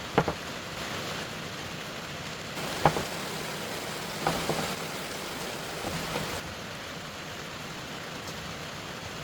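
Steady rain falling, with four short light knocks spread through it.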